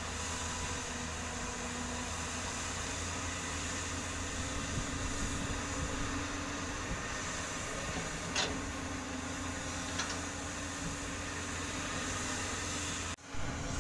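Heavy diesel engines running steadily as a JCB crawler excavator loads soil into a dump truck, with two sharp knocks about eight and ten seconds in. The sound cuts out for a moment near the end.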